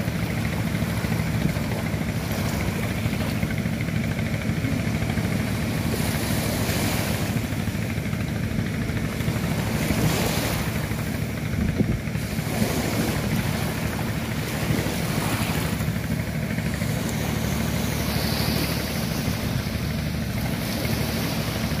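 Small waves washing up onto a sandy beach, rising and falling in gentle surges over a steady low rumble.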